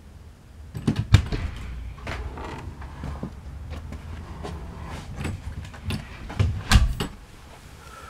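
A door unlatched and swung open, with a sharp latch click about a second in, followed by rustling, footsteps and knocks as someone comes in, and another loud knock near the end as the recording laptop is grabbed and handled.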